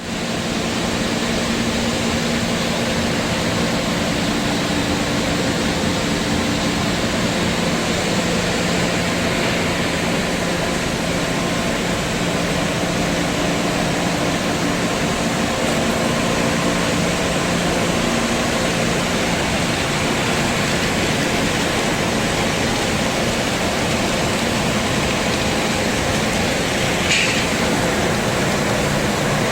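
Breadcrumb extrusion production line running: a steady machine noise from its motors, with a low hum and one short high squeak near the end.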